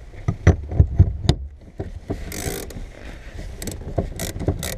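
A few sharp knocks, then short rasping strokes as a wire-out tool draws its cut-out wire through the windshield urethane holding the back glass.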